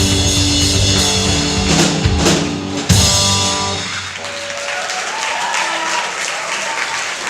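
Rock band playing live on drum kit, electric guitar and bass, ending a song with a final hit about three seconds in. The chord rings out briefly, then the crowd applauds and cheers.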